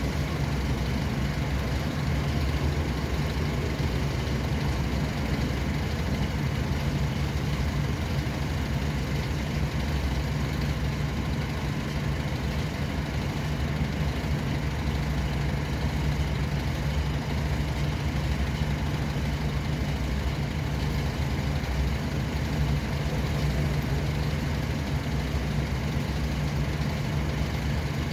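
Steady, low hum of motor-vehicle engine and road noise that stays even, with no distinct events.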